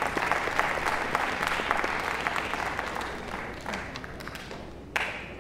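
Audience applause in a large hall, strongest at first and dying away over the second half. One short, sudden knock sounds near the end.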